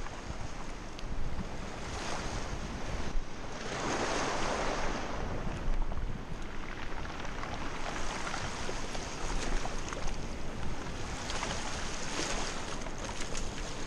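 Small waves washing in on a pebble shore with wind buffeting the microphone; one wave surges louder about four seconds in. Scattered light clicks near the end.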